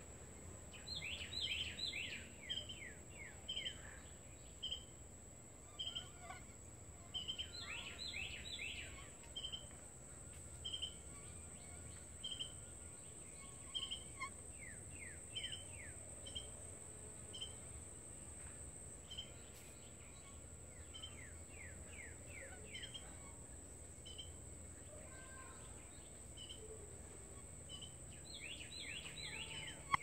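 Birds chirping: a short call at a steady pitch repeated about once a second, with bursts of four to six quick falling notes every several seconds.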